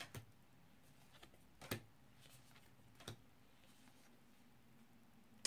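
Faint handling of a deck of oracle cards: a few soft taps and slides of card against card, the clearest about a second and a half in, over near-silent room tone.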